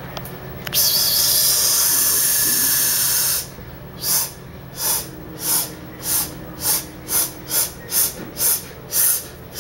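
Tabby cat with its nose right at the microphone: a long hiss of air lasting about three seconds, then quick rhythmic sniffing, about two sniffs a second.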